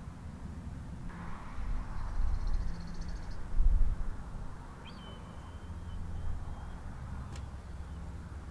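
Backyard ambience with faint wild bird calls: a short buzzy high trill, then one long thin whistled note. Under them runs a low rumble that peaks twice, the loudest moment a few seconds in, typical of wind on the microphone.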